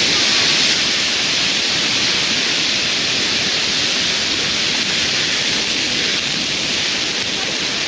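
Steady, loud rush of air forced into a bonfire to fan the flames hotter. The even hiss swells up just before and then holds without change.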